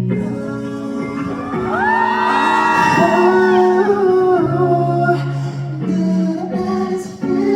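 Instrumental break of a live R&B song, the band holding sustained chords, with many fans whooping and cheering together from about two seconds in for about two seconds.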